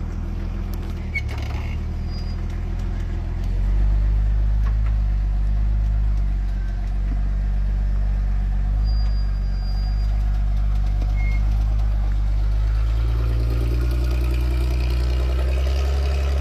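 Off-road 4x4 truck engine running steadily at low revs while crawling over rocks, pulling harder about three and a half seconds in.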